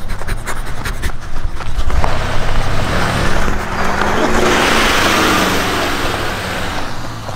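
Chevy pickup truck driving along a gravel road, engine and tyres on gravel growing louder to a peak about five seconds in, with the engine pitch rising then falling as it nears and passes, then easing off.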